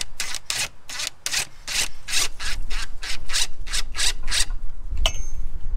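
Hand ratchet wrench with a 12 mm socket tightening a drive-belt tensioner's adjuster bolt, taking the belt up to tension. Each stroke gives a short rasp of ratchet clicks, about four strokes a second, stopping about four and a half seconds in. A low rumble builds in the second half, and there is a single sharp click near the end.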